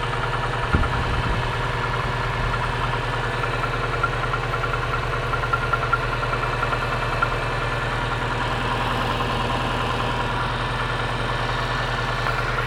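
Subaru EJ16 1.6-litre flat-four (boxer) engine idling with a sharp, distinct knock: a fast, even ticking over the steady engine sound, the mechanical knock that the engine is known for.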